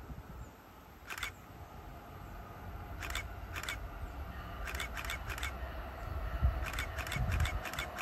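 An approaching passenger train, heard as a low rumble with a faint steady whine, both growing louder. Short, sharp ticks come in small clusters over the top.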